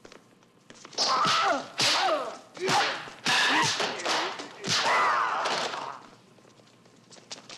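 Film fight sound effects: five loud swishing blows in quick succession, each with a cry that falls in pitch, the last one longest.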